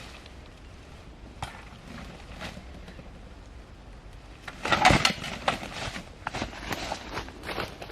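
Footsteps crunching through dry undergrowth: a few scattered crunches at first, then a loud burst of crunching and rustling about five seconds in, followed by a run of steps.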